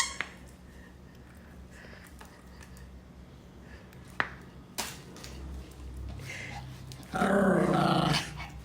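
Spitz dog growling for about a second near the end, after faint room sound broken by two sharp clicks.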